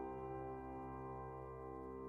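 Soft instrumental background music: a single held chord slowly dying away.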